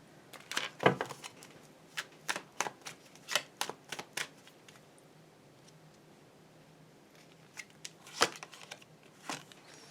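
Tarot cards being handled and laid out: a run of quick card snaps and slaps over the first four seconds, then a pause, then a few more slaps near the end.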